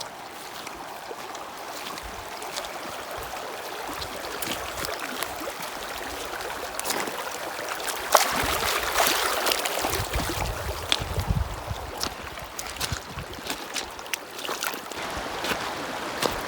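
Mountain stream rushing steadily, a waterfall-fed runoff flowing down toward a lake, with scattered sharp clicks over it and a brief low rumble about ten seconds in.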